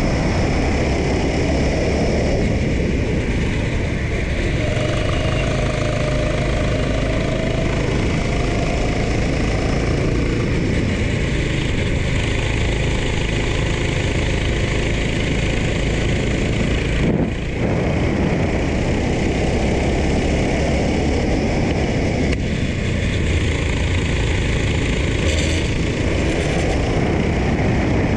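Racing kart engine running hard at speed, heard from the onboard camera with rushing wind on the microphone; the engine pitch sinks and climbs as the kart slows for corners and speeds up again, with a brief dip about seventeen seconds in.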